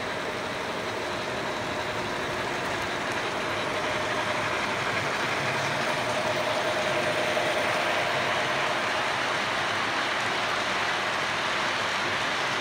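O scale model passenger train running past on its track: a steady whir and rumble of wheels on rail and motor, getting louder as it comes close, with a faint motor whine near the middle.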